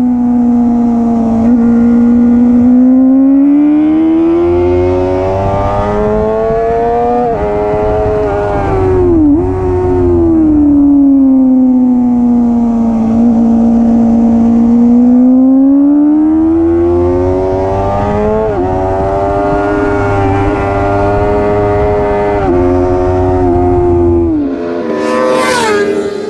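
Suzuki GSX-R 600's inline-four engine at high revs on a race track, heard from on board. Its pitch climbs slowly, falls, then climbs again, with a few sudden steps. About a second before the end, a motorcycle passes close by with a falling pitch.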